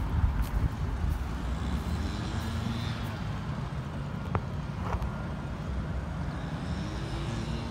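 Steady low rumble of a motor vehicle, with an engine tone that rises and then holds near the end, and two light clicks around the middle.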